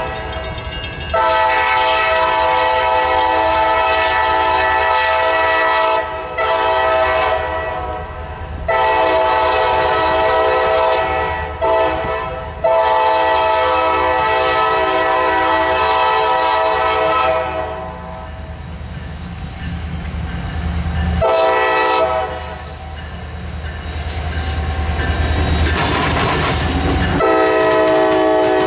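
Diesel freight locomotive led by an EMD SD50 sounding its multi-chime air horn in several blasts, mostly long with short ones between, as it approaches a diamond crossing. It then passes with the low rumble of the diesel engines and metallic clacking and squealing from the wheels, and near the end one more horn blast sounds at a lower pitch.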